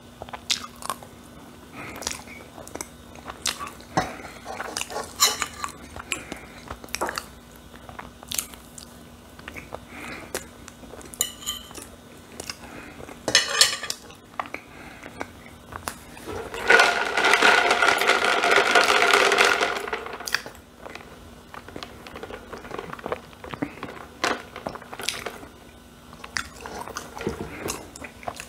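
Fork clinking and scraping on a ceramic plate, with chewing of soft food between the clicks. A little past halfway a louder drawn-out pitched sound lasts about three seconds.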